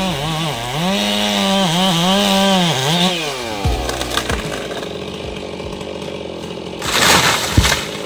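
Chainsaw cutting into a dead trunk at high revs, its note dipping and recovering several times as it bites, then dropping off the throttle with a falling pitch about three and a half seconds in. A short, loud crash about seven seconds in.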